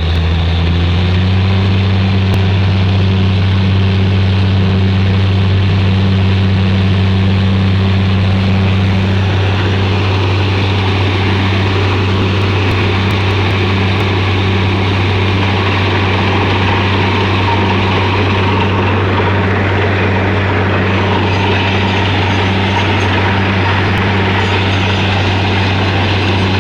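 Heavy machine's engine running steadily at a constant speed, with a steady low hum.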